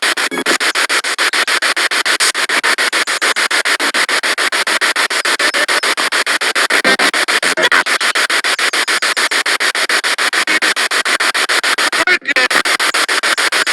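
Spirit box radio sweeping rapidly through stations: a steady rush of static chopped into quick, regular pulses several times a second, with a brief dropout near the end.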